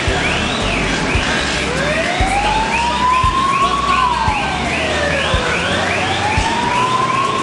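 Two sirens sounding together: one in a fast repeating yelp, the other a slow wail that rises and falls twice. A regular low thump sounds underneath.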